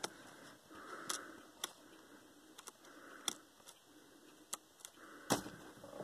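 Scattered small metallic clicks and taps as a screwdriver works a tiny screw into a Dell laptop's plastic case near the keyboard, about half a dozen at uneven intervals, the loudest near the end.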